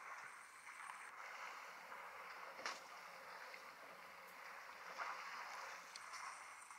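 Faint water noise from African elephants drinking at the water's edge, with two sharp clicks, one a little under three seconds in and one about five seconds in. A faint high steady tone starts near the end.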